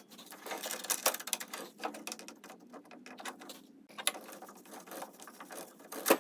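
Rapid, irregular metallic clicking and rattling from tools and hardware as the bolts clamping the two halves of a split rear sprocket are fitted and tightened. A sharper click comes at the start and another just before the end.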